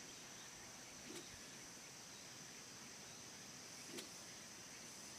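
Faint outdoor ambience with a steady high-pitched insect drone. There are soft ticks about a second in and again near four seconds.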